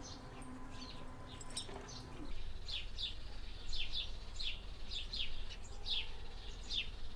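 Small birds chirping in a quick run of short, downward-sweeping chirps, sparse at first and coming thick and fast from about two seconds in.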